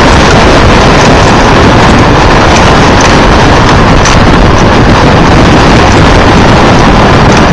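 Strong wind buffeting the microphone: a loud, steady rushing noise.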